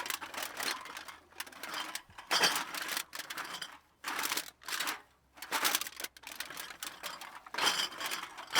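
Empty bottles clinking and rattling against one another, heard at a distance, in short irregular bursts of clinks with a ringing note in some of them.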